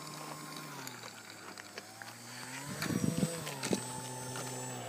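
Electric motor and propeller of an FMS Cessna 182 foam RC model plane running on the ground with a steady whine. The pitch drops about a second in and climbs again around three seconds, where a brief louder rush and a click come through.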